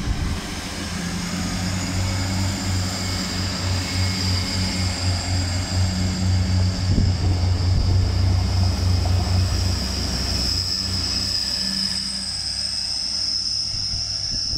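Grand Central Class 180 diesel multiple unit passing close by, its underfloor diesel engines running with a steady low drone and a thin high whine over it that rises slightly.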